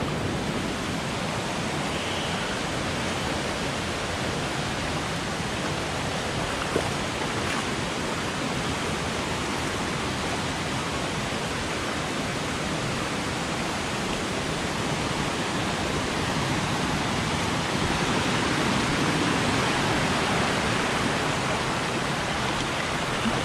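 Shallow rocky stream running over boulders and small rapids, a steady rush of water that swells a little near the end.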